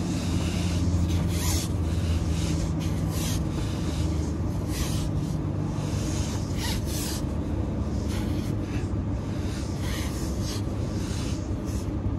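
Repeated short scrapes and rubs of a long white pipe being handled and bent overhead, over a steady low hum that fades out about two-thirds of the way through.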